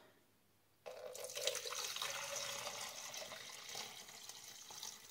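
Cooking liquid being poured from a stainless steel bowl, a steady splashing pour that starts suddenly about a second in and slowly tapers off.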